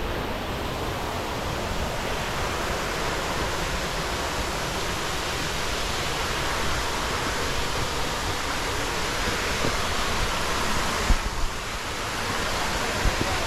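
Waterfall rushing steadily, an even wash of falling water, with a couple of brief knocks about eleven seconds in.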